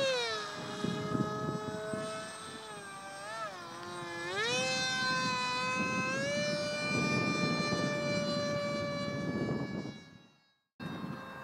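Radio-controlled model F-15K jet flying overhead, its motor whining at a steady high pitch that dips about three seconds in and climbs back up a second later, over a low wind rumble. Near the end the whine fades, breaks off briefly and returns.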